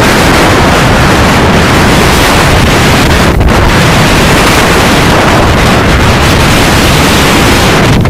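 Heavy surf breaking into a narrow rocky inlet, loud and steady, with strong wind buffeting the microphone.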